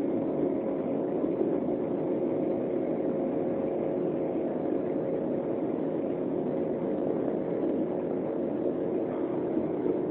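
Jet cabin noise inside an Embraer 195 rolling on the ground: its turbofan engines run at a steady level, an even rush with a couple of held humming tones.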